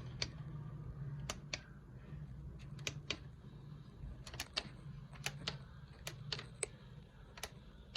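Buttons on a Voltas Beko dishwasher's control panel being pressed: a series of short sharp clicks, often in quick pairs, over a low steady hum.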